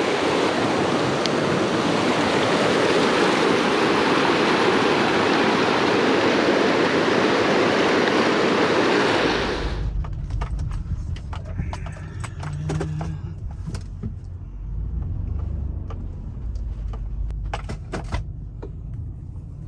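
Steady rush of river water for about the first half. It cuts off abruptly to a low vehicle rumble with scattered clicks and rattles.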